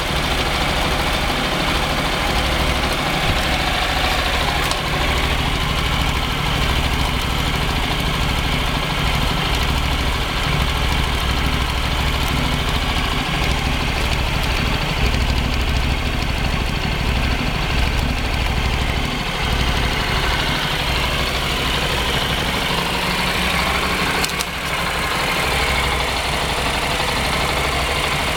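Motorcycle engine idling steadily after being half submerged in floodwater, with water being blown out through the muffler.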